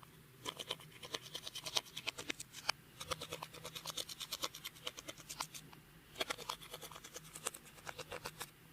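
Clear slime being worked by hand, giving rapid runs of small sticky clicks and pops with brief lulls between them.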